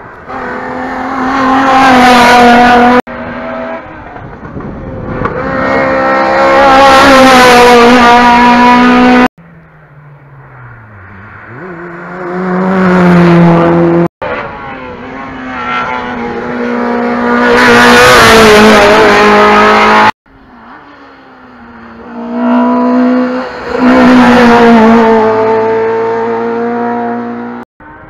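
Hillclimb race cars at full throttle up a mountain road, engines revving high and rising in pitch as each car comes up and passes close by. There are five separate passes, each building to a loud peak and then cutting off abruptly.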